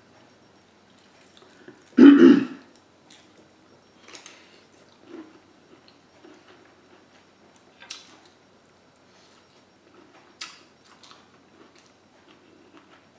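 A person clears her throat once, loudly, about two seconds in. Then come faint, scattered mouth smacks and clicks of eating, with a finger-lick near the end.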